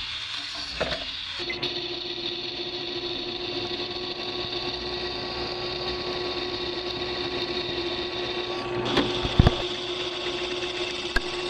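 A cut-off wheel grinder finishing a cut in steel plate, then, about a second and a half in, a drill press running steadily as its bit drills 7/16-inch holes through two tack-welded steel plates. A few sharp knocks sound about nine seconds in.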